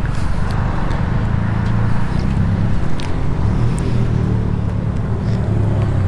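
Kawasaki Ninja 400's parallel-twin engine idling steadily, a low even rumble.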